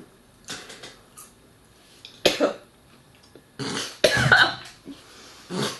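A woman gagging and coughing in several short fits while chewing dried mealworms, her gag reflex set off by them; the longest and loudest fit comes near four seconds in.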